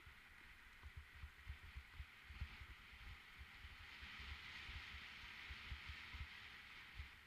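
Faint sound of a mountain bike descending, picked up by a helmet camera: a steady hiss of rolling tyres and moving air that swells about four seconds in, with irregular low thumps as the bike jolts over the ground.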